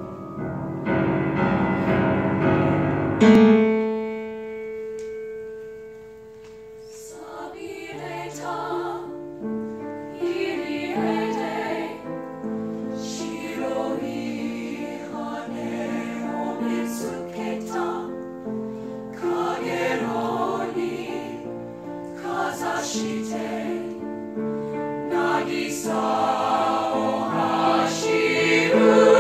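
Mixed choir singing in parts. A loud chord breaks off about three seconds in and dies away, then the voices come back in softly around seven seconds in and swell toward the end.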